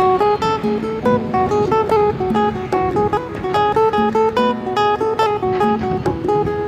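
Background music: acoustic guitar playing a plucked and strummed melody.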